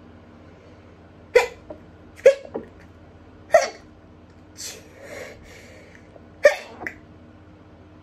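A woman's rapid stifled sneezes, held in behind her hand: four short, sharp bursts, some with a smaller catch just after, the last following a longer pause. The sneezing is from allergies.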